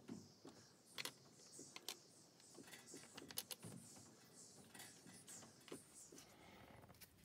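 Plastic glazing packers being handled and set down on a plastic window frame: faint, scattered clicks and taps, a few of them sharper.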